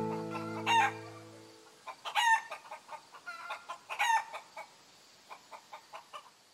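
Chickens clucking, with three louder short calls about one, two and four seconds in and a run of quieter clucks near the end. A strummed guitar chord fades out over the first second and a half.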